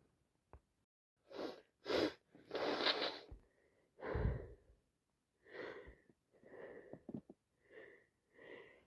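A woman with a head cold sniffing and breathing in through a congested nose: a few short, sharp breaths in the first half, then fainter catching breaths.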